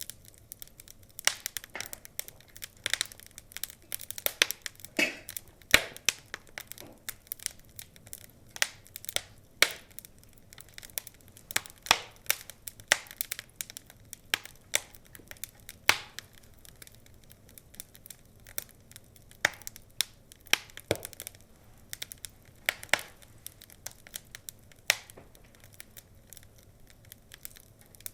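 Wood fire crackling, with sharp, irregular pops and snaps, several of them much louder than the rest.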